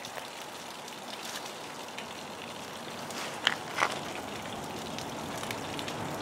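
Light rain pattering steadily, with two sharper ticks a little past halfway.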